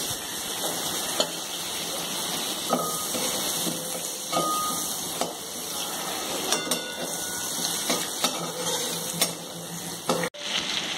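Butter melting and sizzling in a kadai over a gas flame, a steady hiss with a few light clicks.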